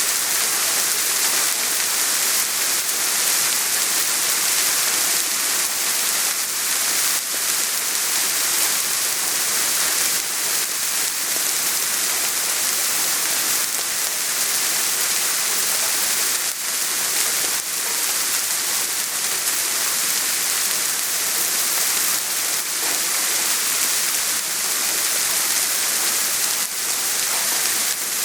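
Steady soft rain falling, an even hiss without thunder.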